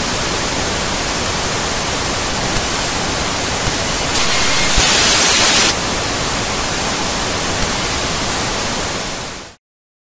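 Analog television static from a channel gone off the air: a steady hiss, louder and brighter for about a second and a half in the middle, then dipping and cutting off shortly before the end.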